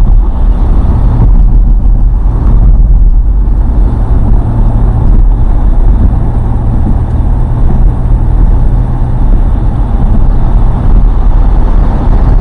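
Loud, steady low rumble of road traffic, with a faint engine hum and no distinct events.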